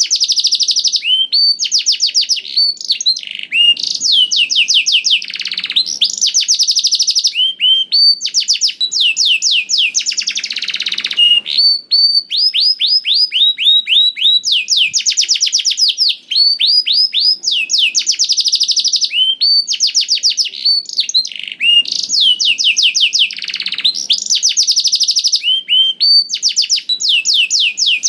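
Domestic canary singing a continuous, full song: phrase after phrase of rapidly repeated high, downward-sliding notes, with hardly a pause between phrases.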